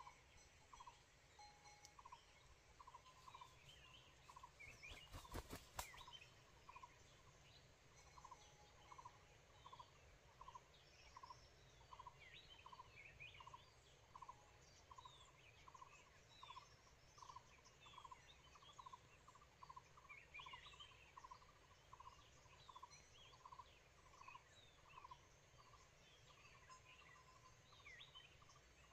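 Red junglefowl rooster clucking faintly and steadily, about two short clucks a second, with small birds chirping. A brief crackle about five seconds in is the loudest sound.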